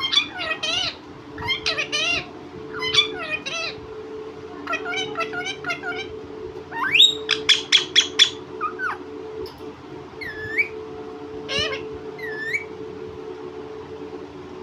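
Pet parrot calling in strings of wavering, squawky calls, with a quick run of six or seven loud, sharp calls about halfway through and a few short rising chirps near the end. A steady low hum runs underneath.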